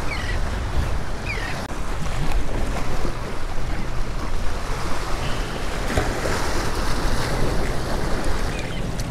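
Surf washing and splashing against the rocks of a stone jetty, with wind buffeting the microphone.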